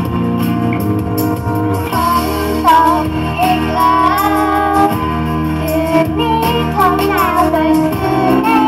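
Young girls singing a Thai pop song into microphones over a backing track from loudspeakers, with no live instruments. The singing comes in about two seconds in over the steady accompaniment.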